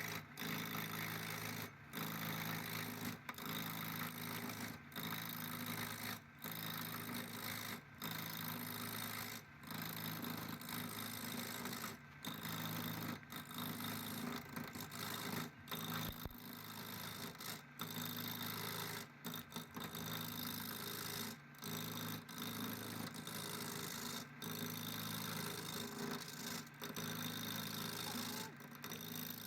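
A motor-driven machine running steadily with a low hum under a dense hiss, cut by brief gaps about every one to two seconds.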